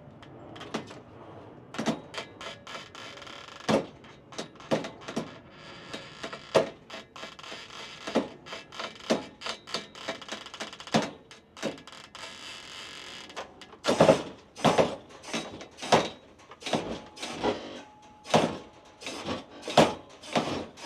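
Irregular knocks and clunks of metal and wooden pallets as a stripped Jeep body is lowered onto them, coming faster and louder in a cluster about two-thirds of the way through.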